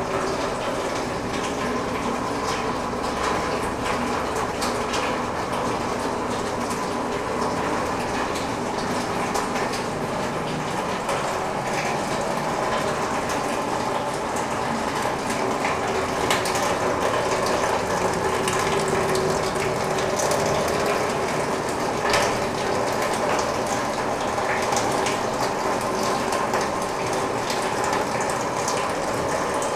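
Pumped water drumming on corrugated metal roof sheets and wooden battens: a dense, steady patter of countless drops, like heavy rain on a tin roof.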